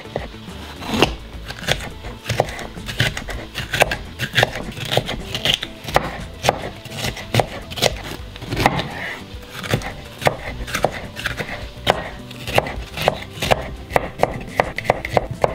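Chef's knife chopping vegetables on a cutting board, sharp irregular strokes a few times a second, with background music.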